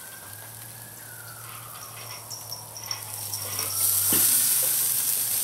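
A distant siren wails, slowly rising and then falling in pitch. About four seconds in, a hissing sizzle starts as the vinegar mop is dabbed onto the pork butt on the hot Weber kettle grill.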